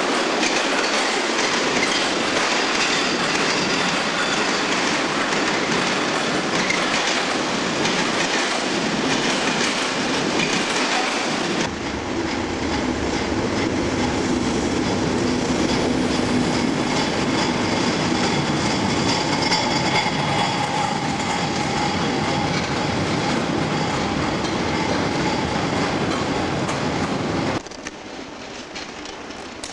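Loaded steel wagons rolling through a station, wheels clattering over the rail joints. About twelve seconds in, an English Electric-engined Class 37 diesel locomotive passes hauling a steel train, its engine running with a steady drone over the wheel noise. Near the end the sound drops to a fainter rumble as a Class 47 diesel approaches with parcels vans.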